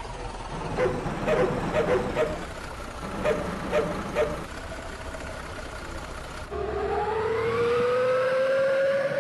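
Bus engine through an aftermarket "srigala" exhaust: a run of short revs about half a second apart, then a long rev whose pitch climbs slowly and steadily.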